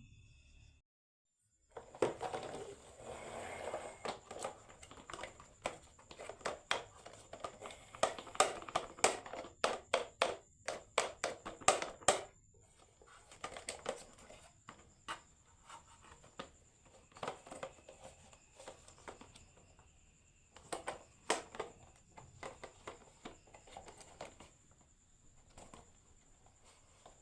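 Marbles rolling and clattering down a wooden marble run track: a rolling rumble with many quick clicks and knocks, thick for the first ten seconds or so, then thinning to scattered clicks.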